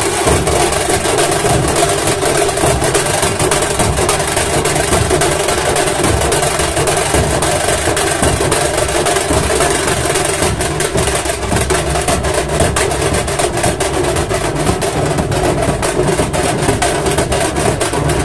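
Dhol-tasha troupe playing loud, continuous drumming on large dhol barrel drums, with dense, fast strokes that thicken about ten seconds in.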